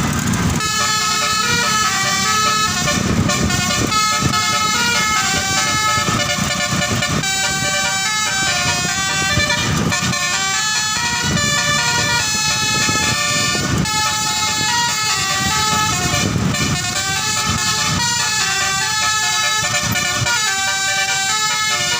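Bus telolet horn, a basuri-type multi-tone musical horn, playing a long melody of stepped notes. It cuts in about half a second in and stops just before the end.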